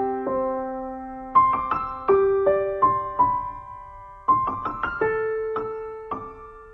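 Background music: a slow, gentle piano piece. Short runs of notes are struck, about a second and a half in and again past four seconds, and each is left to ring and fade.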